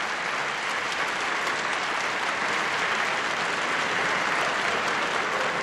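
Studio audience applauding: a steady round of clapping.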